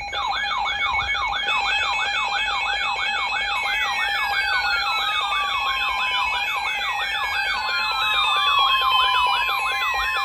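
Emergency Alert System attention tones for a severe thunderstorm warning: a steady alarm tone layered with a fast up-and-down warble about three times a second and several slowly falling whistle glides, all sounding together, loud.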